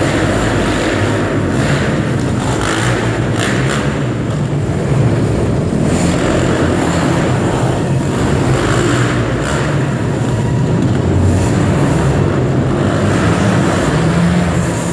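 Engines of small youth quad ATVs running on a dirt track, their pitch rising and falling as the riders accelerate and ease off, echoing in a large indoor hall.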